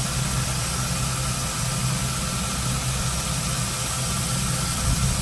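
A motor running steadily with an even low hum and a faint higher whine, no change in speed.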